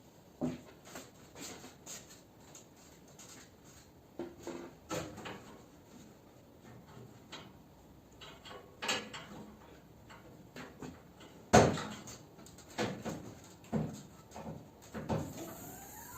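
A series of irregular knocks and clunks, about a dozen at uneven intervals, the loudest about eleven and a half seconds in.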